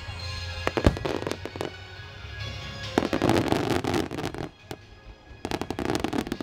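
Fireworks from a star mine display: a quick run of sharp bangs from bursting shells about a second in, then two long stretches of dense crackling a few seconds later. Music plays underneath.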